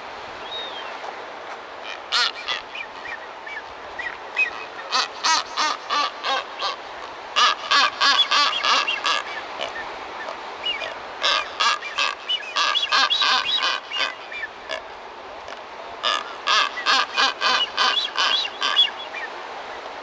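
Blue-footed boobies calling: several bouts of short, rapid calls, about five a second, with pauses of a second or two between bouts.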